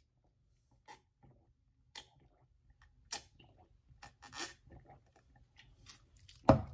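Faint sips and swallows from a plastic cup of iced tea, picked up by a close microphone, a few scattered over several seconds. A louder single thump comes near the end.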